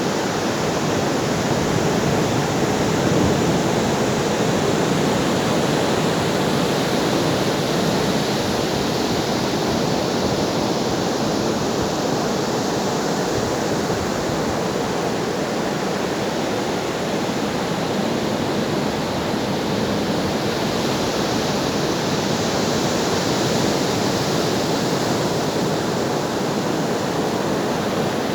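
Ocean waves washing on the shore in a steady, continuous rush, swelling only slightly now and then.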